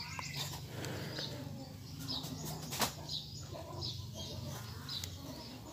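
Leaves and twigs of a small sancang bonsai rustling as a hand parts and handles its branches, with one sharp click a little before the middle. A bird chirps over and over in the background.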